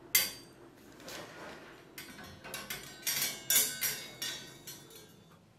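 Stainless steel ladles and skimmers clinking and knocking against a stainless steel wire utensil stand as they are hung on its hooks. A sharp clank right at the start, then a quick run of clinks and knocks through the middle seconds.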